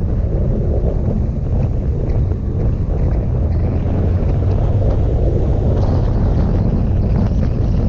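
Steady wind rushing over the microphone of a camera on a moving motorcycle, with the motorcycle's engine and tyres running underneath.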